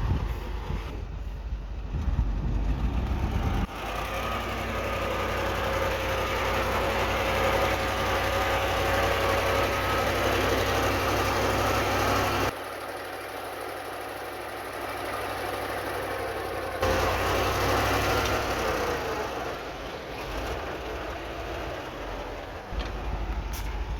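Heavy diesel earthmoving machinery running, a deep engine rumble with a steady whine over it for several seconds. The sound changes abruptly several times, dropping low around the middle and coming back.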